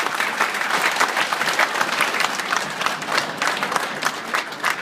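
A group of people applauding: many hands clapping together in a dense patter that thins to scattered single claps near the end.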